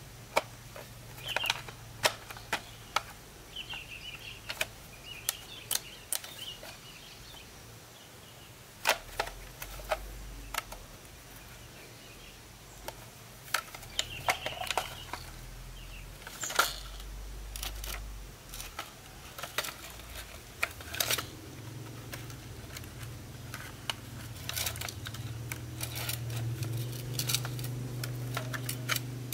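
Irregular light clicks, taps and small clatter, as of small tools and parts being handled on a work surface, over a steady low hum that grows louder near the end.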